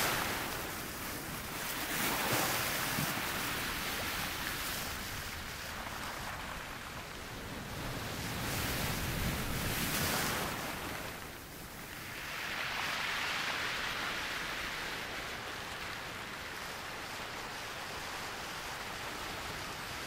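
Ocean surf: waves breaking and washing up the shore, the rush swelling and falling every few seconds.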